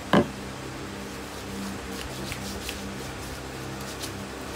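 A single sharp knock a fraction of a second in, then a steady low hum with a few faint ticks.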